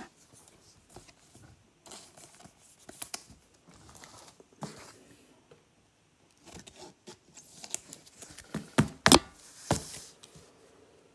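Trading cards and their plastic sleeves and holders being handled: soft rustling and scraping with small clicks, then several sharper clicks and knocks a little before the end.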